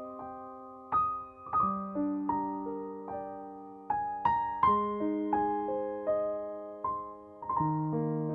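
Background piano music: slow, gentle notes, each struck and left to fade, several sounding together.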